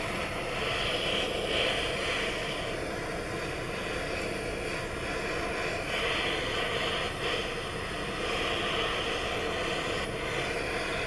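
MAP gas torch flame burning with a steady hissing rush while heating a copper fitting for soft soldering; the hiss swells and eases several times.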